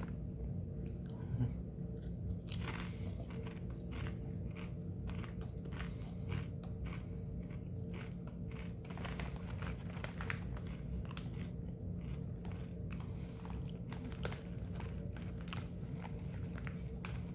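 A person chewing a mouthful of Sun Chips multigrain chips close to the microphone: a long run of crisp crunches, several a second. A steady low hum sits underneath.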